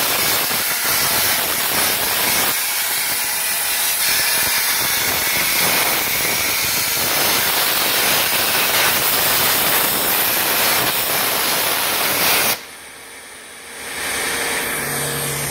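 CNC plasma cutter torch cutting steel plate: the plasma arc gives a loud, steady hiss that cuts off suddenly near the end as the arc goes out. About a second later a softer, steady rushing noise starts up.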